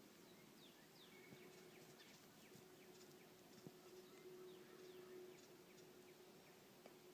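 Near silence: faint outdoor quiet with scattered short, high, falling chirps and a faint steady low hum.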